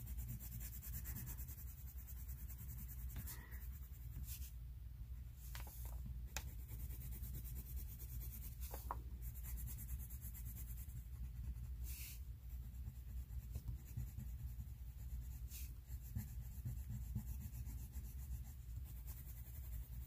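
A white colored pencil scratching and rubbing on coloring-book paper in continuous, faint strokes, layering white over blue to lighten and blend it. A steady low hum runs underneath, with a few faint knocks.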